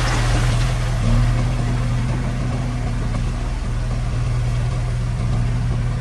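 Heavy-equipment diesel engine running steadily at an even speed.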